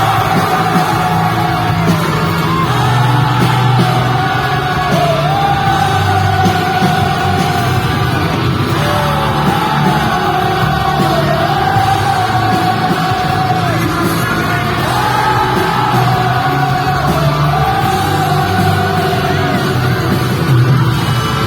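Pop rock band playing live, with a melody sung in long held, wavering phrases over steady bass and band backing.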